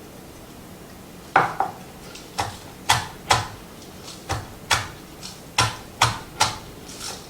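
Knife cutting scallions on a cutting board: the blade knocks on the board about twice a second, starting about a second and a half in.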